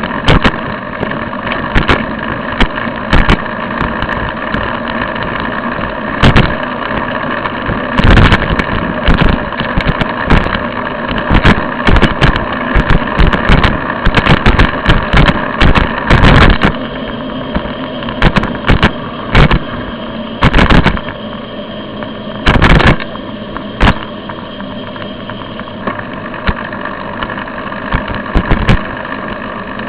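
Steady engine and road noise from a moving vehicle, broken throughout by frequent short, sharp knocks and rattles.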